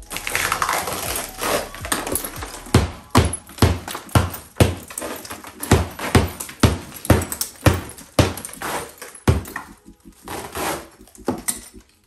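Hammer striking a wide steel scraper driven behind a shattered, film-covered wall mirror, about two blows a second, with the broken mirror glass cracking and crunching as pieces are prised off the wall.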